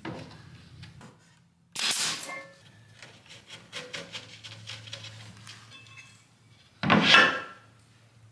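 Wooden parts being handled against a wood frame: a plywood panel and small wooden spacers knocking and scraping on 2x4 framing while the panel is set plumb. There are two louder knocks with scraping, about two seconds in and near the end, the second the loudest, and light taps between them.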